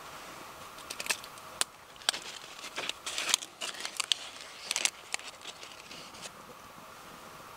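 Dry leaf crackling and crunching as gloved hands crumple and break it up: an irregular run of sharp crackles starting about a second in and dying away about six seconds in.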